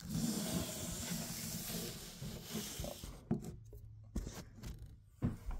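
Handling noise as the recording camera is picked up and repositioned: rustling of hands and sleeve against the microphone for about three seconds, then several light knocks and taps as it is set in place.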